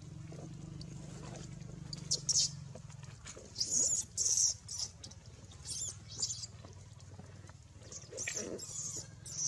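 Newborn macaque infant crying in distress: a string of short, high-pitched squeals, several in quick succession with short gaps between.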